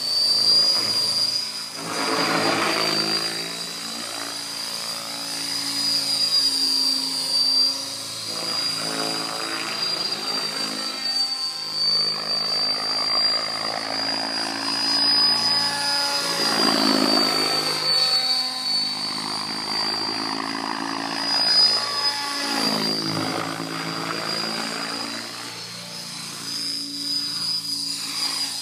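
Mikado Logo 800 electric radio-controlled helicopter flying 3D aerobatics: rotor blade noise with a steady high whine. The rotor sound shifts in pitch and swells and fades repeatedly as the helicopter manoeuvres.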